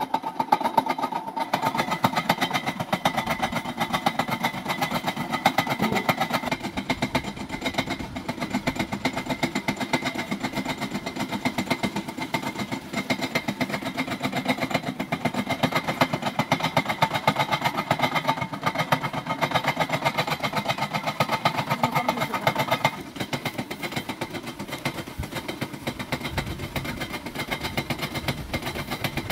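Homemade belt-and-flywheel generator rig running steadily, a rapid, even mechanical chugging with no pauses; it drops a little in level about three-quarters of the way through.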